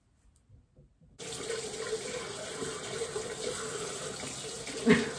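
Bathroom sink tap turned on, water running steadily into the basin after a near-silent first second. A single sharp knock near the end is the loudest sound.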